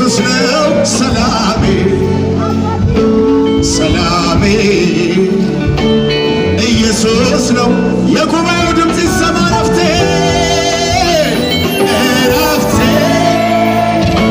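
Live Ethiopian Protestant worship song (mezmur) played loud and without a break by a band with singing, heard from among the audience in a large hall.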